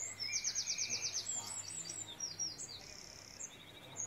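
Small birds chirping in the background, with a fast trill of about ten notes in the first second, then scattered chirps and a short high whistle about three seconds in.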